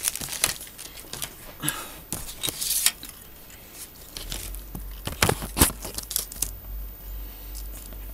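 Plastic model-kit sprue being picked up and handled, with irregular light clicks, taps and rustles of plastic.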